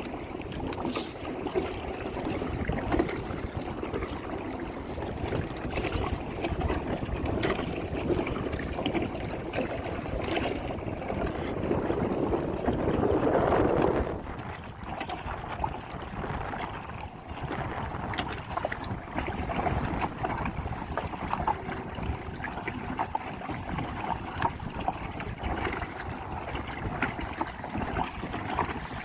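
Water moving around a kayak and wind on the phone's microphone: a steady rushing with scattered small splashes, swelling about halfway through and then dropping suddenly.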